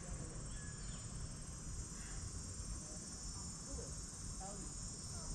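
Steady insect chorus, a continuous high trilling hum like field crickets, over a faint low rumble.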